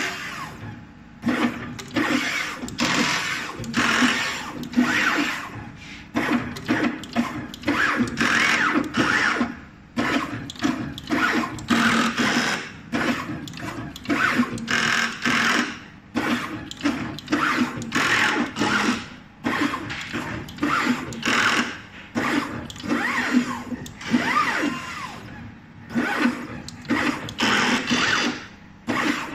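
NeoDen N4 pick-and-place machine running, its head and gantry motors whirring in quick repeated bursts with short pauses between moves as it picks components from the feeders and trays and places them on the board.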